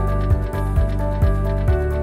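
Background music with a steady beat under sustained tones.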